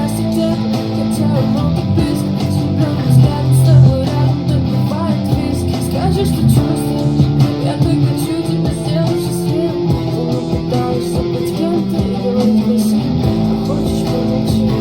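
Guitar strumming the chords of a pop song in a steady rhythm, without vocals.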